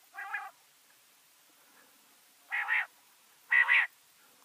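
Quail calling: three short, harsh calls, one at the start, then after a pause of about two seconds two louder ones a second apart.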